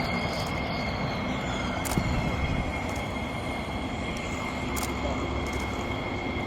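Jet aircraft engines running steadily: a high whine over a low rumble, with a couple of faint clicks.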